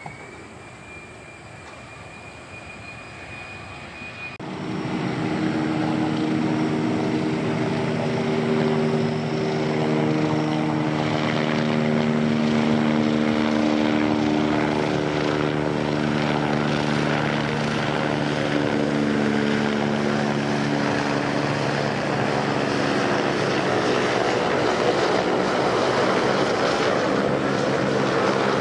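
For the first four seconds, the Kawasaki C-2's turbofans give a whine that rises and then holds steady. Then an abrupt cut brings in the Kawasaki C-1's twin Pratt & Whitney JT8D low-bypass turbofans at high power for the touch-and-go roll. This is a loud, steady jet noise carrying several low drone tones.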